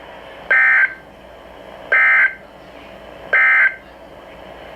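Emergency Alert System end-of-message code on NOAA Weather Radio: three identical short, buzzy digital data bursts, about a second and a half apart, over a faint radio hiss. It signals the end of the alert broadcast.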